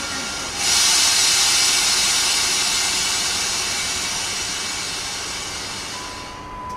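Loud hiss of compressed air blowing off from a ChS4T electric locomotive's pneumatic system. It surges about half a second in, then fades slowly.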